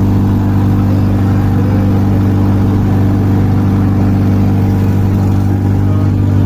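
Motorboat engine running steadily at a constant speed with an even, unchanging drone.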